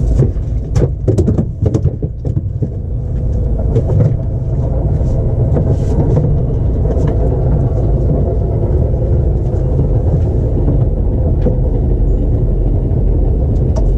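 A steady low rumble, with a few knocks and clatters in the first couple of seconds.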